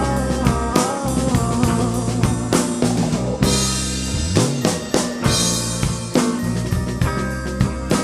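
Rock band playing an instrumental passage without vocals: drum kit with snare and bass drum hits under sustained keyboard and bass parts.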